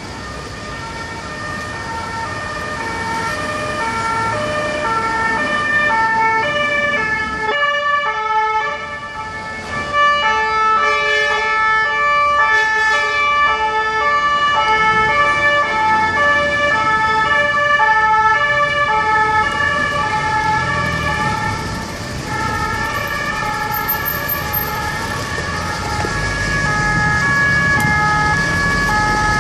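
Two-tone emergency vehicle siren, a high and a low note taking turns about every half second, growing louder over the first several seconds, with motor traffic underneath.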